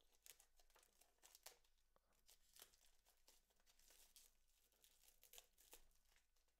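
Faint crinkling and tearing of thin plastic shrink-wrap being peeled off a boxed phone, in many irregular small crackles.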